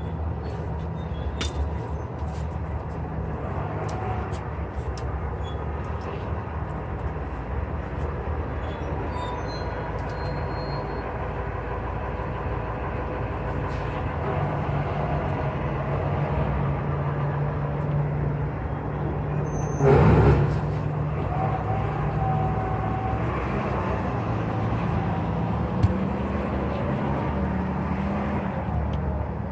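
A large vehicle's engine idling steadily, with a short, loud burst of hissing air about two-thirds of the way through and a sharp click a few seconds later.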